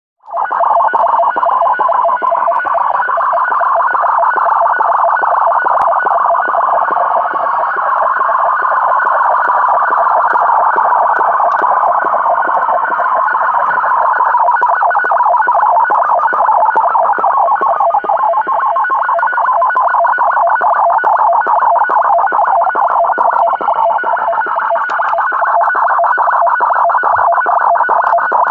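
A strange shortwave transmission on 3730 kHz played through a Tecsun PL-660 portable receiver's speaker: a dense, continuous buzz that cuts in just after the start and holds steady. The uploader takes it for a possible SSTV (slow-scan television) signal.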